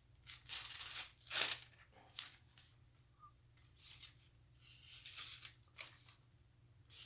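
Dull blade of a cheap multi-tool pocket knife being drawn through paper in several rasping strokes with pauses between them: a dull edge pulling and tearing at the paper rather than slicing it cleanly.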